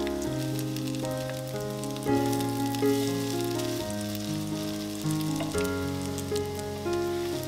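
Zucchini and rice fritters sizzling and crackling in hot oil in a frying pan, under background music of slow held chords with a bass line that changes every second or two.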